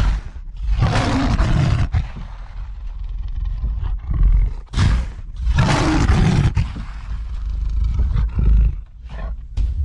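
Loud roaring sound effect: a run of long, harsh roars with a deep rumble, several of them cut off abruptly, ending in a few short bursts.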